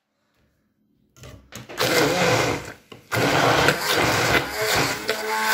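Electric immersion (stick) blender puréeing roasted aubergine with the other ingredients in its tall plastic beaker. It starts about a second in, drops off briefly just before the middle, then runs on steadily.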